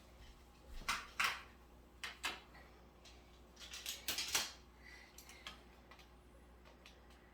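Small hard toy pieces being handled, clicking and clattering in a few short, irregular knocks, the loudest about a second in and about four seconds in.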